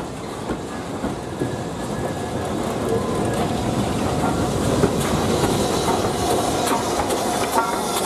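BR Standard Class 5 steam locomotive and its coaches running into the platform and passing close by, wheels clicking over the rail joints, growing louder as it nears.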